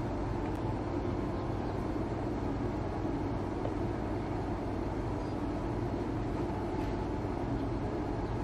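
Steady low hum and hiss of background noise, even throughout, with nothing else standing out.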